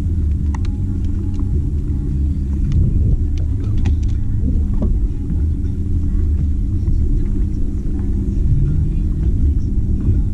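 Boat motor running steadily, a loud low rumble with a constant hum, heard from aboard the boat.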